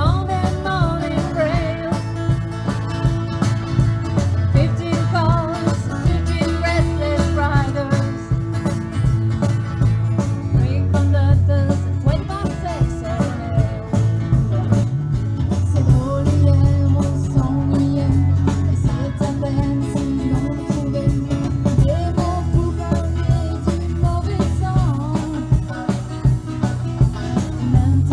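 Live country-rock band playing: electric guitars, bass and drums keeping a steady beat, with a bending lead melody line on top.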